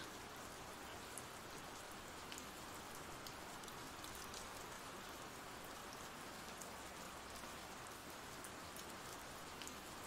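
Faint, steady rain from an ambient rain sound-effect track: an even hiss of rainfall with scattered light drop ticks.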